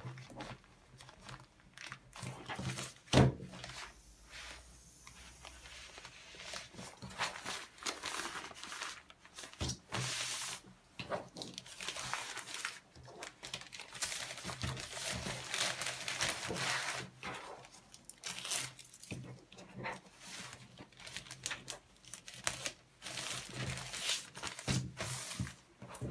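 Thin plastic packaging rustling and crinkling in irregular bursts as a folded canvas tote bag is handled into a clear plastic sleeve and a white poly mailer envelope. A single sharp knock about three seconds in is the loudest sound.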